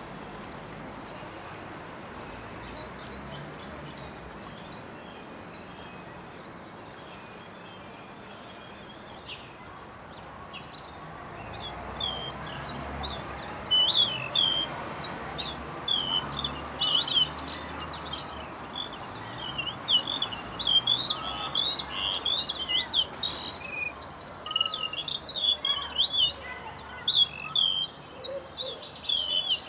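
A steady background hiss, then from about twelve seconds in a quick run of many short, high bird chirps that goes on to the end.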